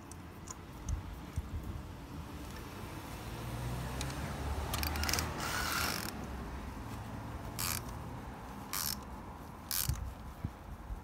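Hand tools working on a spark plug: a spark plug socket and extension turned by hand, then a ratchet wrench fitted onto the extension and clicking as it turns the plug in. Several separate sharp metal clicks come in the second half.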